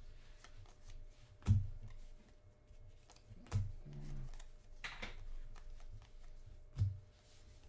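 Stack of football trading cards being leafed through by hand, the cards sliding and flicking against each other, with three sharp knocks about a second and a half, three and a half and nearly seven seconds in.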